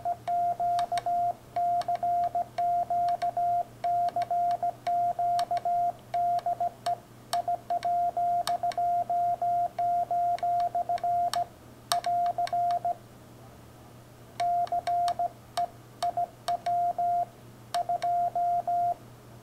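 Morse code sidetone from a Yaesu FT-857 transceiver: a single steady beep near 700 Hz keyed into dots and dashes by a homemade paddle, the paddle's levers clicking at each stroke. Sending pauses for about a second and a half just past the middle.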